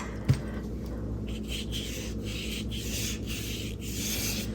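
A paintbrush rubbing across gesso-primed mixed media paper in a series of short strokes with brief pauses between them, after a single light knock near the start.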